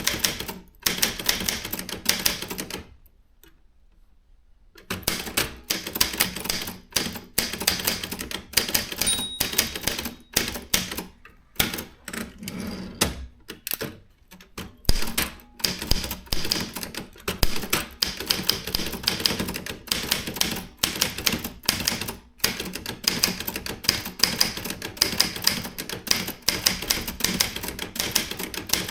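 Consul 1502 typewriter being typed on steadily, its keys and typebars clacking rapidly against the paper. About three seconds in the typing stops for about two seconds, then carries on at the same pace.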